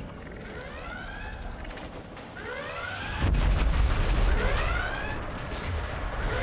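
Starship bridge alarm sounding in repeated sweeping tones, the sign of a ship in crisis. About three seconds in, a deep rumbling boom sets in over it and becomes the loudest sound.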